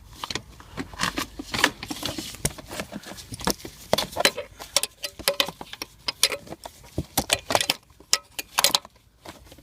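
Irregular metallic clicks, taps and light clinks of hand tools on bolts and metal under a car, as a socket or spanner is worked onto the 10 mm bolts holding the gear select cable plate.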